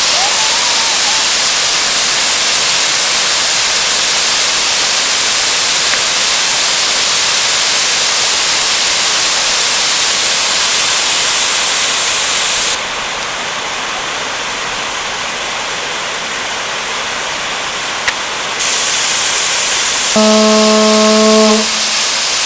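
Waterfall with the steady rush of falling water. Between about 13 and 18 seconds the hiss abruptly loses its top and gets quieter, then comes back. Near the end a steady pitched tone lasts about a second and a half.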